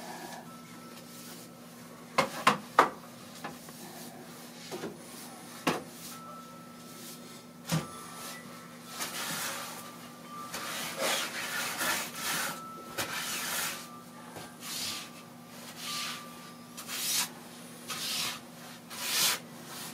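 Snow being scraped and cleared off a deck with a hand tool: a few sharp knocks in the first half, then a run of repeated scraping strokes about one a second.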